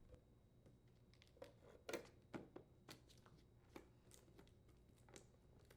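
Faint, scattered clicks and taps as the inner cover over a refrigerator's power supply board is handled and snapped into position, the loudest click about two seconds in.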